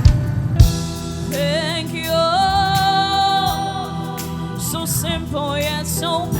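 Gospel worship song: a lead singer over a live band, holding one long note with vibrato in the middle of the passage, with a couple of sharp drum hits near the start.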